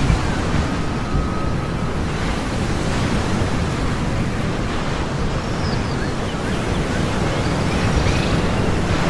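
Steady wash of ocean surf with wind noise, and a few faint high chirps about halfway through and again near the end.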